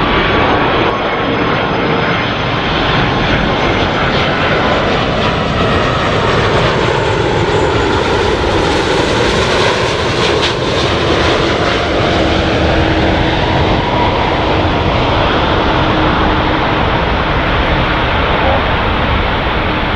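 Airbus A330-200 with two Rolls-Royce Trent 772B turbofans passing on its landing approach: a loud, steady jet roar with a whine whose pitch bends as the aircraft goes by, brightest about nine to eleven seconds in.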